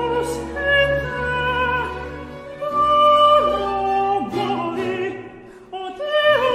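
A countertenor sings an 18th-century Baroque opera aria with vibrato on held notes, over an orchestral accompaniment of sustained low string notes. The voice falls in a couple of downward runs and pauses briefly shortly before the end, then comes back in.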